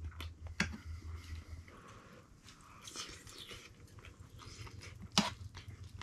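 Someone eating stew: quiet chewing, with a fork clicking and scraping in the bowl. The sharpest clink comes about five seconds in.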